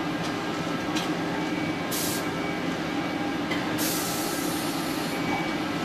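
Car assembly-line factory noise: a steady machinery hum with a few faint steady tones, a click about a second in, and two hissing bursts, a short one about two seconds in and a longer one from about four seconds in that lasts over a second.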